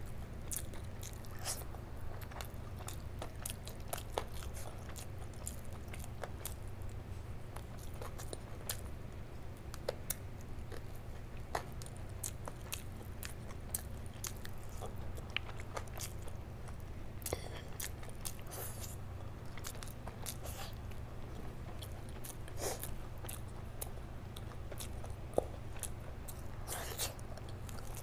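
Close-miked chewing and biting of chicken eaten by hand, with many short mouth clicks scattered throughout. A steady low hum runs underneath.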